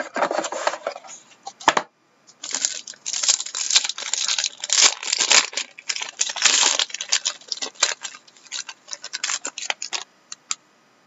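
Plastic wrapping on a stack of trading cards crinkling and tearing as it is pulled open by hand. The rustling is dense and crackly, breaks off briefly about two seconds in, and stops near the end.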